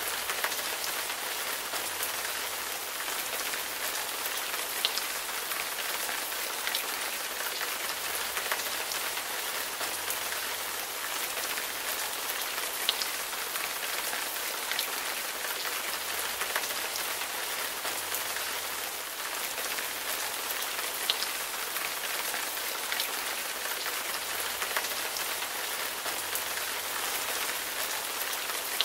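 Steady rain falling, with scattered sharper drop impacts standing out now and then.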